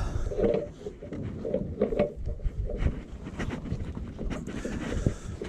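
Irregular rustling and rubbing of a mesh load net and webbing strap handled with work gloves, with a few light knocks.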